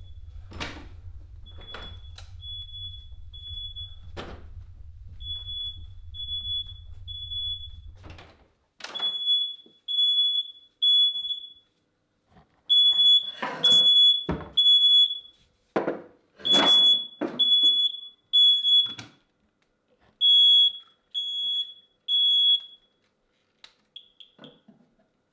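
High electronic alarm beeping in groups of three, the pattern repeating over and over and growing louder about a third of the way in, with heavy knocks and thumps mixed in. A low hum underneath cuts off suddenly about a third of the way in.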